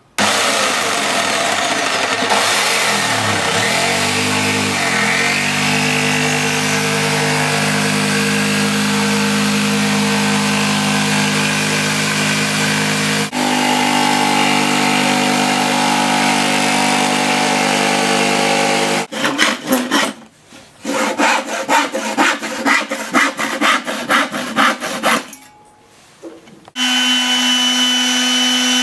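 Electric jigsaw cutting plywood, its motor running steadily with a couple of brief pitch dips early on as the blade loads; after about 19 s it breaks into short stop-start bursts. Near the end an electric palm sander starts up and runs steadily against a plywood edge.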